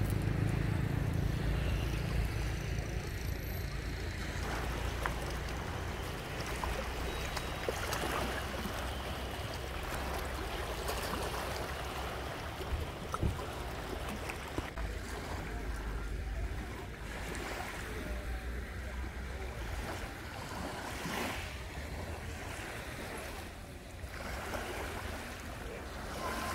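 Seaside ambience: waves washing on the shore, with a low steady rumble that fades out about halfway through.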